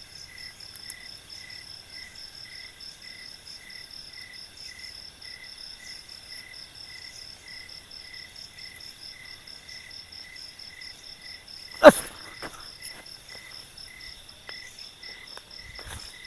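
Night insects calling steadily in even, pulsing chirps at two different pitches. A single sharp knock about three-quarters of the way through stands out loudly over them, followed by a few faint clicks.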